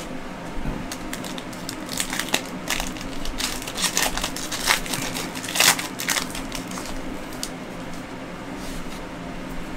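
Foil wrapper of a Panini Prizm Draft Picks football card pack being torn open and crinkled by hand. Irregular crackles and rustles, with a couple of louder crackles about halfway through.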